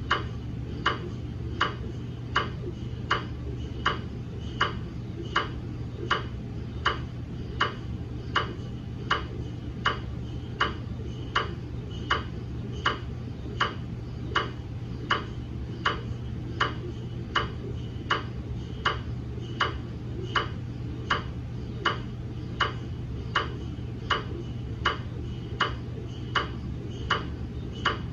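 GE MRI scanner ticking steadily, about five sharp ticks every four seconds, over a constant low hum.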